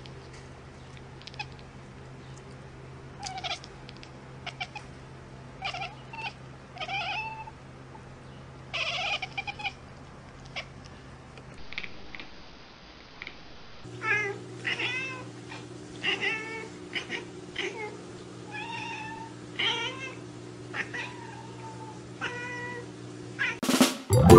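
Domestic cats meowing: a run of short meows that rise and fall in pitch, a few every couple of seconds and more often in the second half, over a steady low hum.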